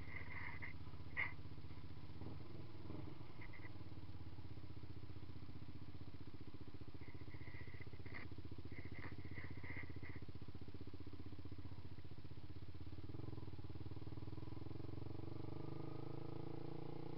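2012 Yamaha YZF-R15's single-cylinder four-stroke engine through a Two Brothers Racing aftermarket exhaust, running steadily at low revs as the bike rolls along. It revs up with rising pitch over the last few seconds. A few brief high chirps sound in the first half.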